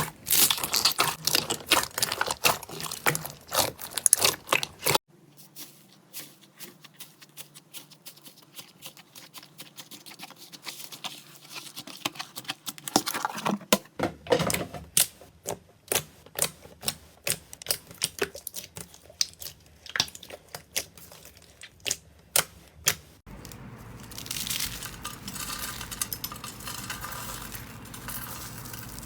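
Slime being pressed, poked and stretched by hand, giving many sharp clicks and pops. The texture changes abruptly three times, from a dense run of clicks to sparser ones and then to a denser, softer squishing.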